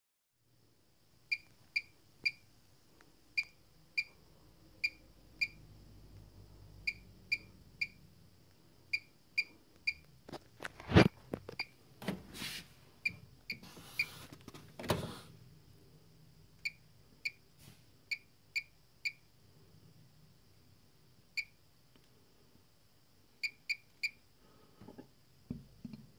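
Siemens iQ800 washing machine's control panel beeping over and over: short, identical high-pitched beeps in irregular clusters of one to three, the sign of the control panel fault the owner reports. Around the middle, a few louder bumps and rustles of handling.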